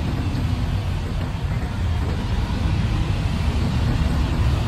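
Steady low rumble of street background noise, with no distinct strokes standing out.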